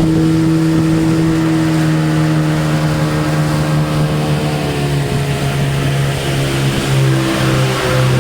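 Tour boat's motor running, its pitch falling slowly over several seconds as it throttles down, then holding steady near the end.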